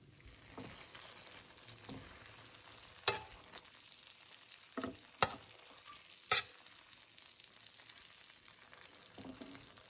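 Steak fajita strips with sliced red peppers and onions sizzling steadily in a frying pan while being stirred, the metal spatula clicking sharply against the pan a few times.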